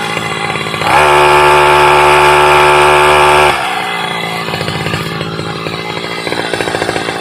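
Brush cutter engine idling, then throttled up about a second in and held at high revs for about two and a half seconds before dropping back to a lower, uneven speed. This demonstrates the sign of a worn clutch lining, which the operator says keeps the cutter from spinning up properly at full throttle.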